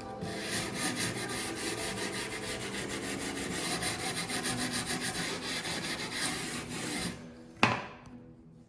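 Fast, even scraping and rubbing on old oak floorboards, a stroke repeating many times a second. A sharp knock comes near the end, then the scraping fades away.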